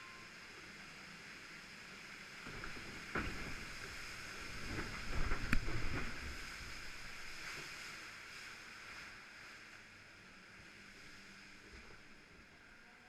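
Log flume boat splashing through the water channel: rushing, splashing water that swells to its loudest about three to six seconds in, then settles back to a steady hiss of flowing water.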